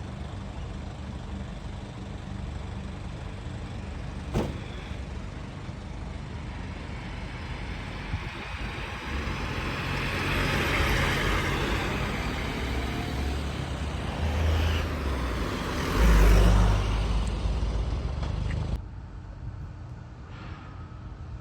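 Road traffic passing close by: a steady engine hum, then a heavy vehicle's engine swelling as it goes past and loudest with a low rumble about two-thirds of the way in. The sound drops off suddenly near the end.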